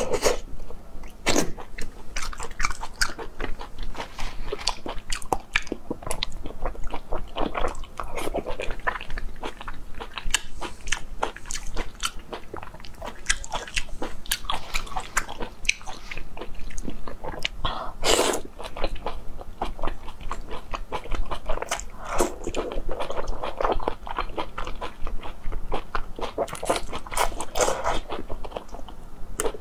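Close-up mouth sounds of a person eating braised intestines and thick noodles: biting and chewing, a dense stream of small clicks and smacks, with slurping of the noodles.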